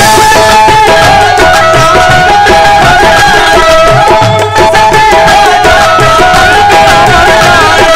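Qawwali instrumental passage, loud: a harmonium plays a melody of held, stepping notes over a quick hand-drum rhythm.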